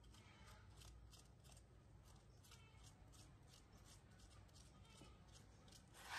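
Faint scratching of a metal spoon scraping the flesh out of a halved apple, short strokes about three a second, with one louder scrape at the very end.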